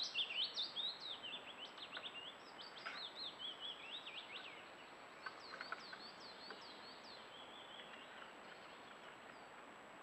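Woodland songbirds singing: a rapid, jumbled warbling song in the first four seconds or so, then a run of short down-slurred whistled notes around the middle, with only faint song after that.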